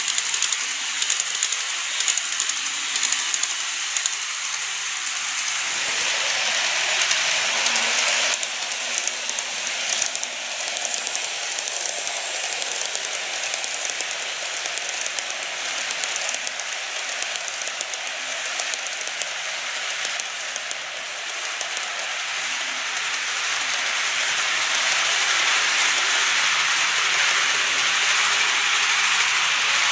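Model trains (Seibu 30000 series) rolling along the layout track, a steady clattering rumble of small wheels on the rails with fine clicks. It grows louder near the end as a train comes toward the microphone.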